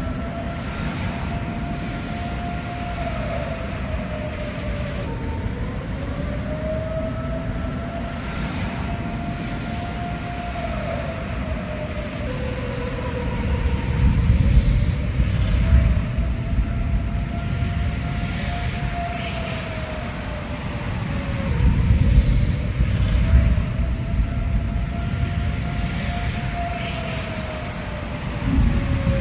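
Outdoor tornado warning siren sounding a long wail that sags in pitch and swells back every several seconds, over a low rumble that grows louder twice.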